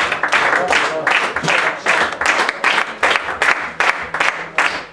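Small group of people clapping in a steady rhythm, about three claps a second, to cheer on a lifter.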